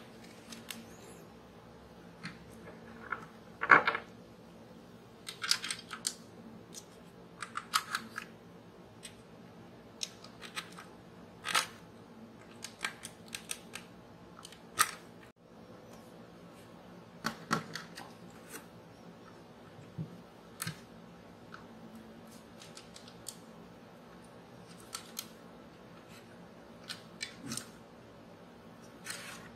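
Scattered small clicks, taps and light scrapes of plastic and diecast parts as hands handle a 1:12 scale diecast motorcycle model and pose a jointed figure on it, with the loudest knock about four seconds in.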